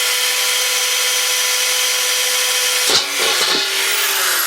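Corded power drill running at steady speed as its bit bores through a thin metal bowl. About three seconds in there is a short clatter as the bit breaks through, and then the motor's whine falls in pitch as it slows.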